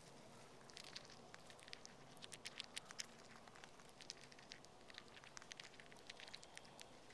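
Eastern chipmunk nibbling seeds from a hand: faint, rapid crackling clicks of seeds being bitten, thickest about two to three seconds in.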